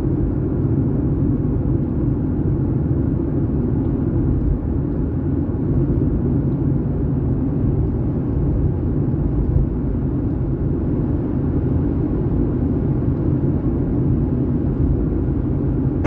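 Steady low rumble of a car, heard from inside the cabin.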